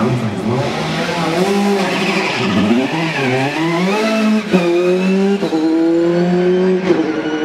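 Opel-engined formula race car leaving the start line: the revs rise and fall at first, then the engine pulls hard and climbs in pitch through quick upshifts in the second half.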